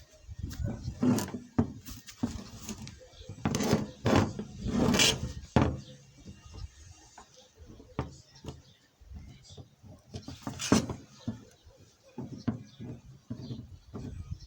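Irregular knocks and clatter, hard objects striking and rattling against each other at an uneven pace, busiest about a third of the way in and again two-thirds through.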